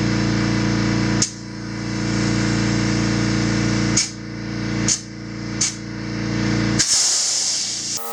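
Air compressor running steadily while a motorcycle inner tube with its valve core removed is inflated, with four short hisses of air as the chuck is pressed on and pulled off the valve stem. A longer rush of air near the end.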